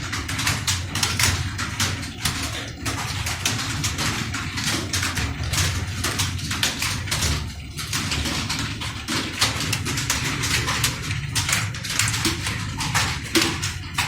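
Many computer keyboards being typed on at once during a typing test: a dense, continuous clatter of overlapping key clicks, with a steady low hum underneath.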